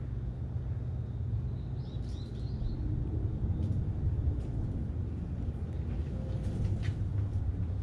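Steady low outdoor rumble, with a short run of bird chirps about two seconds in.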